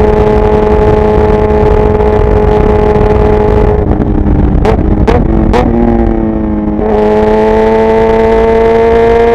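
Kawasaki Ninja 1000SX inline-four engine running hard at highway speed with wind noise. About four seconds in the throttle closes, three sharp pops come from the exhaust and the revs fall, then the engine pulls again with its pitch rising steadily.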